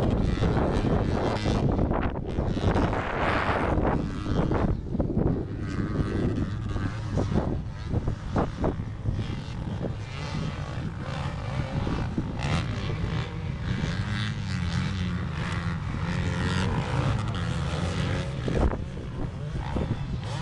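Several 450cc-class motocross bikes racing around a dirt track, their engines revving up and down as the riders accelerate, jump and corner.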